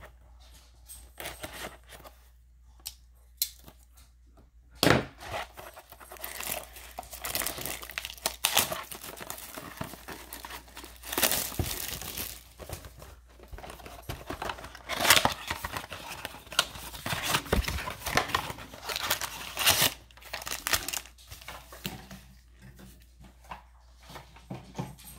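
Plastic wrapping on a 2020 Prestige Football trading-card blaster box being torn open and crinkled by hand. A few light handling clicks come first, then about five seconds in a loud rip starts a long stretch of crinkling with repeated sharp tears.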